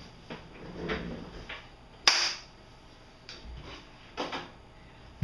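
Handling noises from a bubble-wrapped package moved on a desk: a few short rustles and knocks, with one sharp, louder one about two seconds in.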